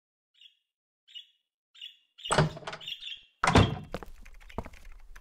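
A few faint, short bird chirps, then a door opening and shutting: two loud thumps about a second apart, followed by lighter knocks and clatter.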